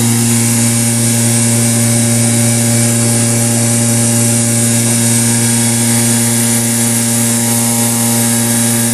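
The vacuum forming machine's vacuum running steadily: a loud, even hum with a rushing hiss, holding the freshly formed plastic sheet down on the mold.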